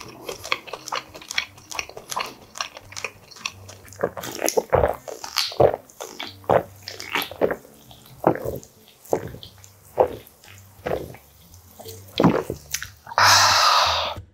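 Close-miked chewing and wet mouth sounds of eating, followed by swallows from a canned drink. Near the end comes a loud breathy exhale lasting about a second.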